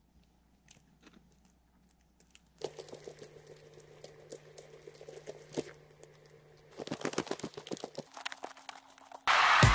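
Snowshoe footsteps crunching in snow: irregular soft crackles and crunches, faint at first, clearer from about three seconds in and densest around seven seconds. Loud background music comes in just before the end.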